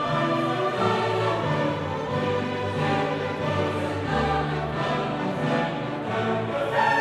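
Background music: a choir singing with orchestra, slow sustained chords.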